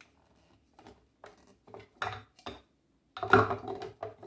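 Plastic clicks and knocks of a small electric food chopper being handled, its bowl and lid set and fitted on the base, with the loudest clatter about three seconds in.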